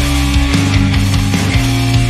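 Loud, driving rock music with distorted electric guitar and a steady beat.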